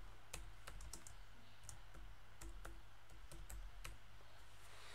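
Computer keyboard being typed on: about ten light key clicks in short, irregular runs as a line of text is entered.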